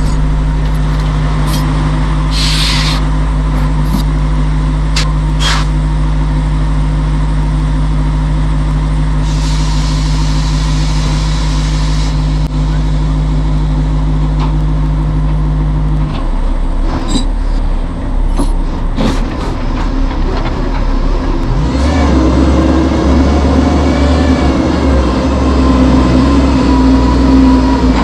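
Kenworth C500 bed truck's Cummins ISX diesel engine running steadily, with short hisses of compressed air and a longer hiss about ten seconds in. About two-thirds of the way through, the engine note changes and the engine speeds up and gets louder.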